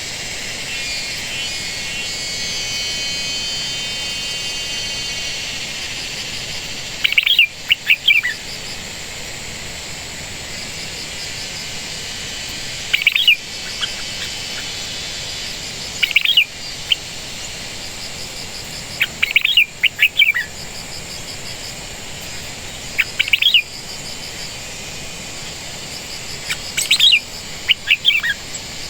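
A wild bird giving short, sharp chirping calls in small clusters every few seconds, over a steady high background trill of insects or distant birds.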